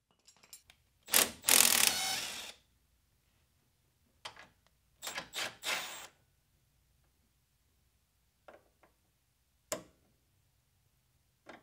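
Milwaukee FUEL brushless cordless ratchet whirring in short bursts as it works fasteners on a car's front suspension: one longer run about a second in, then several quick bursts a few seconds later. A few sharp metallic clicks follow near the end.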